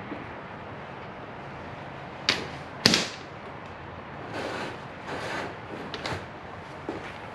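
Two sharp knocks a little over half a second apart, the second the loudest, then a few short scraping sounds, as a new rear shock absorber is worked against its upper mount on a motorcycle.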